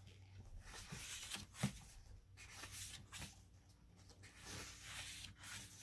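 Pages of a thick photobook being turned and smoothed by hand: soft paper rustles and rubbing in a few separate swishes, with a short tap about one and a half seconds in, over a faint steady low hum.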